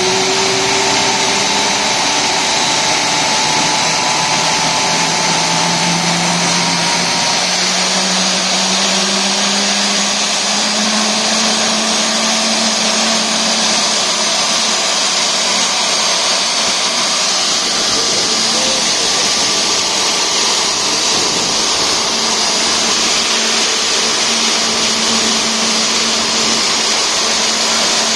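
Airbus A320 turbofan engine running loud, a whining tone rising in pitch over the first ten seconds or so and then holding steady over a dense roar, as the engine spools up after start and settles at idle.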